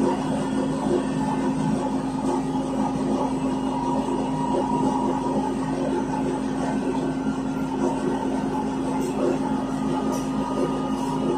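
Cabin of a ZiU-682G trolleybus standing still: a steady, unchanging hum from the onboard machinery, with traffic noise from the street.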